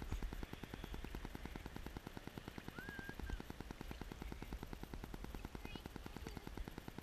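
Rapid, even crackling clatter over a low rumble: water and wind noise on a camera sitting at the sea's surface.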